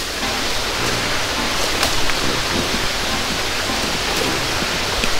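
Steady rushing wash of sea surf breaking on the shore just below, with a few crackles of dry leaves and brush under footsteps.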